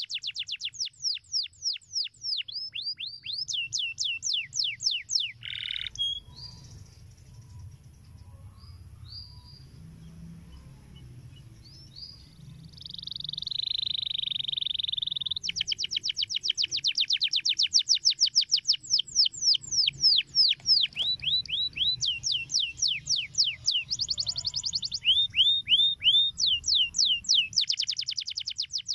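Domestic canary singing: fast trills of repeated downward-sweeping notes. About six seconds in the song breaks off to a few scattered short notes and a held buzzy note, then resumes in dense rapid trills for the rest of the song.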